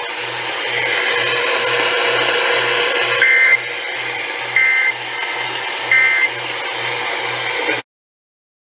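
Weather radio receiver static with a low buzz pulsing about two and a half times a second, broken by three short warbling two-tone data bursts about 1.3 s apart: the Emergency Alert System End-of-Message signal that closes the severe thunderstorm warning. The audio cuts off abruptly near the end.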